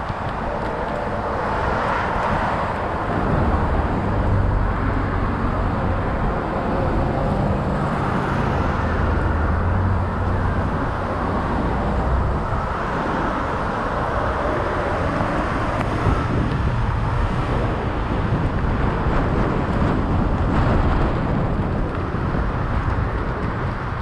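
Car driving along a road, heard from inside: a steady rush of road and wind noise over a low engine hum that rises and falls a little.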